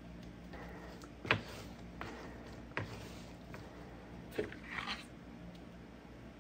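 Handling sounds of body filler work: a sharp knock, a couple of lighter taps, then a few short scrapes as a plastic spreader scoops body filler off a mixing board and works it onto the model's body shell.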